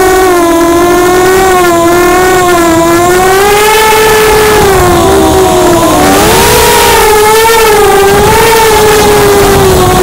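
Brushless motors of an ImmersionRC Vortex 285 racing quadcopter whining in flight, the pitch rising and falling continuously with the throttle, with a dip about six seconds in.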